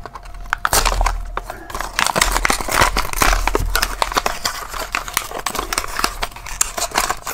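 Matchbox blister-card packaging being torn and crinkled open by hand, the plastic bubble and cardboard giving a continuous run of crackles and rips.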